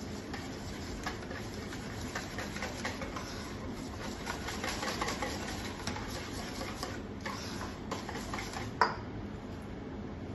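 A whisk stirring a thick green sauce in a stainless steel mixing bowl: a steady run of quick scraping clicks against the metal, with one louder clack near the end.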